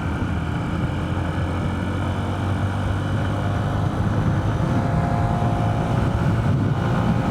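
Honda CB125F's single-cylinder four-stroke engine running steadily under way, with wind noise over the microphone; it grows a little louder about four seconds in.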